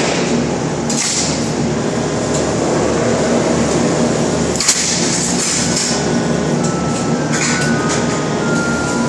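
Steady, loud drone of shop machinery with clanks of steel frame members being handled and fitted on a jig: a sharp clank about four and a half seconds in and a cluster of clanks near the end.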